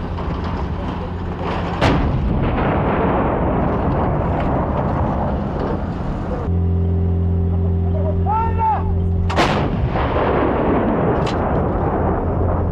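Bofors 155 mm howitzer firing: two heavy blasts about seven and a half seconds apart, the second the louder, with a continuous rumble between them and a steady low hum underneath.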